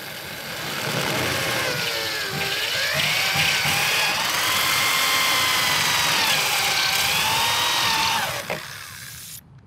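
Cordless drill running a step bit through a Jeep hardtop. The motor whine dips in pitch as it bogs under load about two seconds in and again around six seconds, then the drill stops near the end.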